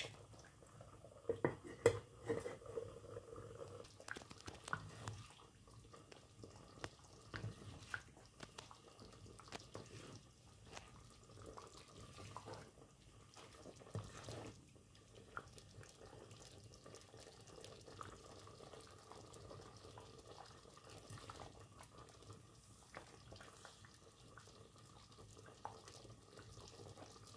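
Pot of thick radish curry bubbling as it simmers on the hob: faint, irregular small pops and blips, with an occasional light knock of a ladle in the pot.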